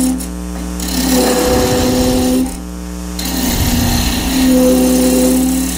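Wood lathe running while a gouge cuts a long spinning wooden blank, with a hissy cutting noise and a humming tone while the tool is on the wood. It breaks off briefly about a third of a second in and again after about two and a half seconds. The blank is longer than usual and vibrates a fair amount under the tool.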